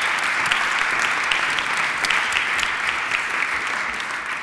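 Audience applauding: many people clapping steadily, the sound starting to ease off near the end.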